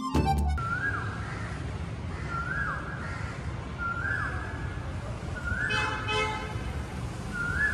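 Background music cuts off just after the start. A high whistled note then repeats five times, about every second and a half, each one rising, holding briefly and sliding down, over a steady low rumble. A short brighter tone joins about six seconds in.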